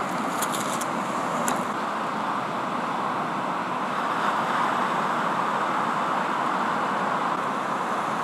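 Breaking surf: a steady, even wash of noise, with a few faint high ticks in the first couple of seconds.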